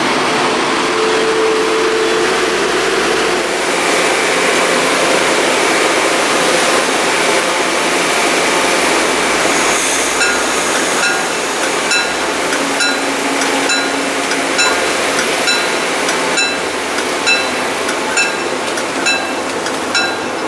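MBTA commuter coaches rolling past close by, a steady rumble of wheels on rail with thin, high wheel squeals in the first half. From about halfway, a metallic bell-like ding repeats evenly, roughly once every 0.7 s, over the rolling noise.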